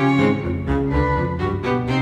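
Background music played on bowed strings, cello and violin, in held notes that change every half second or so.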